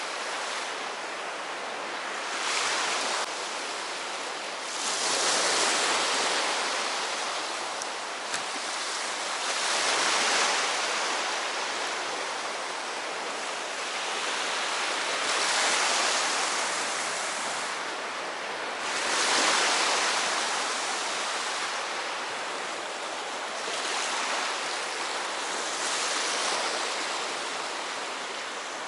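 Sea waves breaking on the shore, a rush of surf that swells and fades every few seconds.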